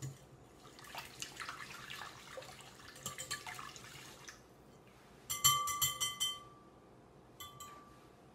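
A wire whisk beating runny wet muffin batter in a glass bowl, a soft sloshing, swishing wash. A little past halfway come a quick run of ringing clinks as the whisk strikes the glass bowl, with one more clink a second or so later.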